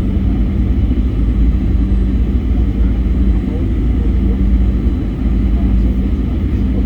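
Steady low rumble inside the cabin of a Boeing 737-800 in flight, from its CFM56 jet engines and the airflow, with a constant low hum.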